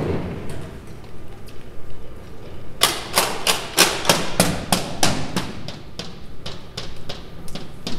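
A steady series of sharp percussive strikes, about three a second, begins about three seconds in and slowly grows fainter.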